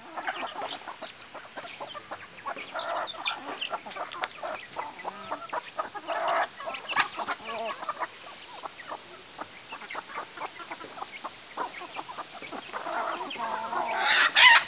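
A flock of hens and a rooster clucking as they feed, with short repeated calls and many small ticks throughout; a louder, higher call rises near the end.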